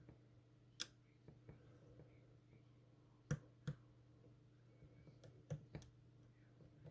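Faint, scattered metallic clicks and ticks of a lock pick and tension wrench working the pin stack of a Master Lock M930 padlock under light tension, with a few sharper clicks about a second in, around three and a half seconds, and near five and a half seconds.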